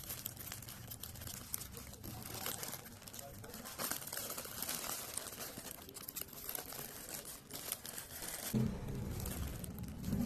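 Black plastic mailer bag being torn open and crinkled by hand, then the clear plastic bag inside rustling as it is pulled out, an irregular crackling throughout.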